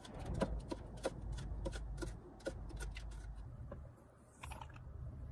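A run of light, irregular clicks and taps, about a dozen, from tableware being handled at a table, with a short lull near the end.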